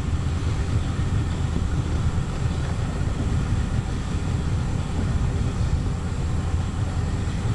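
A boat's outboard motor running steadily, a low even rumble.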